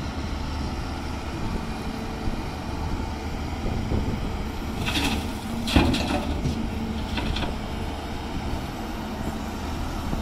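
Hyundai 210 crawler excavator's diesel engine running steadily while it dumps a bucket of earth and rock into a steel tipper truck body. The load lands with a clatter of stones, with a heavy thump about six seconds in, a rattle just before it and smaller rattles about a second after.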